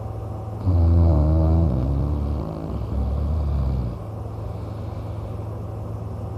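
A man snoring: one loud, low snore starting about half a second in, its pitch falling, followed by a quieter stretch of snore. A steady low hum runs underneath.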